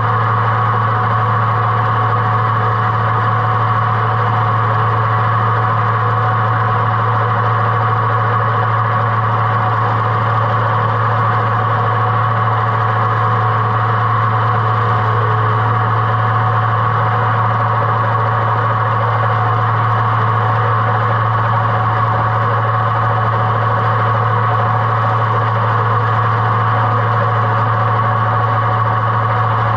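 Oliver tractor engine running steadily under PTO load, driving an Oliver 356 sickle-bar mower as it cuts roadside grass. The mower is working on its newly made wooden pitman arm.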